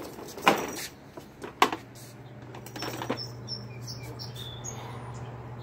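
A few sharp knocks and clatters from a plastic toy truck being handled and pushed on concrete, over a steady low hum, with a few faint high chirps near the end.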